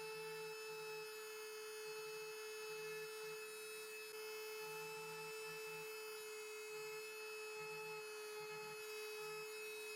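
Small electric motor running at a steady speed, giving a constant, fairly quiet hum, with faint irregular low pulses underneath.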